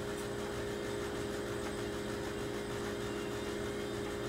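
Steady hum of an electric appliance motor in the room, a constant drone with a few fixed tones.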